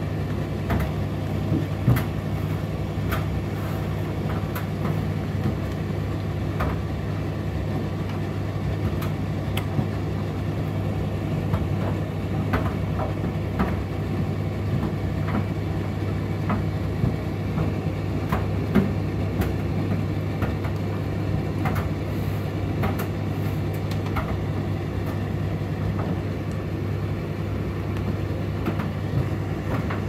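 Indesit IDC8T3 condenser tumble dryer running: a steady hum from the motor and turning drum, with irregular light clicks and knocks scattered through it.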